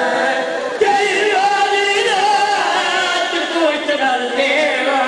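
Several men's voices chanting a drawn-out mourning lament together in long, wavering held notes, without instruments.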